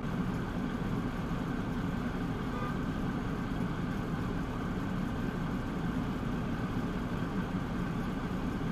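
Car engine idling steadily, a low, even rumble with no change in pitch.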